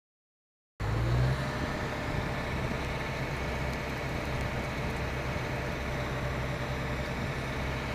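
Crane truck's engine running steadily with an even low hum, starting about a second in.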